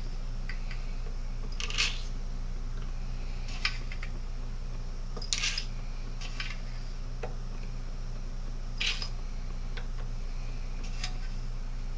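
Light clinks and taps of shotgun shells and shot pellets being handled while the shells are filled through a funnel, about one every two seconds, over a steady low hum.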